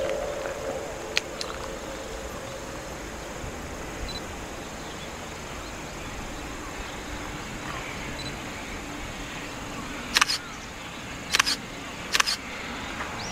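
Camera shutter clicks over steady outdoor ambience: a single sharp click about a second in, then three quick shutter releases near the end, one of them a double. A faint drawn-out tone fades away in the first second and a half.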